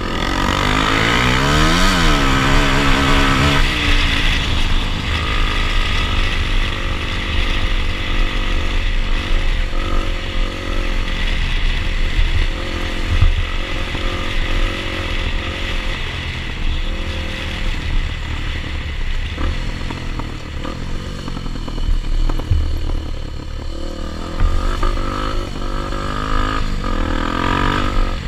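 Dirt bike engines running while riding over rough grassy ground. The engine note dips and climbs sharply in the first few seconds, then keeps changing with the revs over a low wind rumble.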